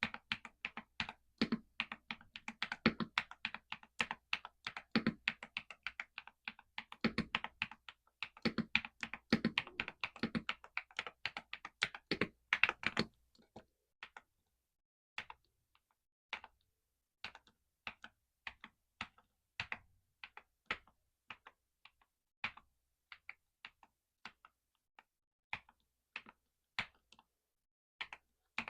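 Typing on a Galaxy 65 mechanical keyboard with XVX Crystal Jelly OEM-profile keycaps. Fast continuous keystrokes for the first half, then it slows to single, spaced key presses about one or two a second.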